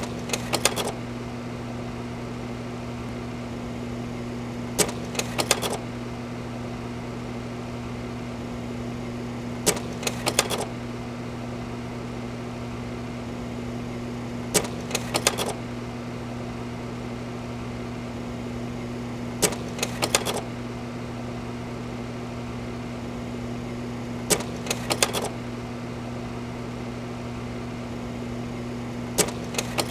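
Old slide projector running with a steady fan-motor hum, its slide-change mechanism clacking through a short cluster of sharp clicks about every five seconds as it advances slides.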